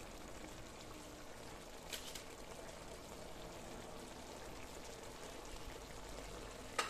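Chicken jalfrezi gravy simmering faintly in a wok, a steady soft bubbling, with a light tap about two seconds in and another near the end.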